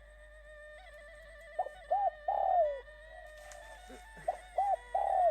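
A dove cooing: a repeated three-note phrase of two short coos and a longer falling coo, heard twice.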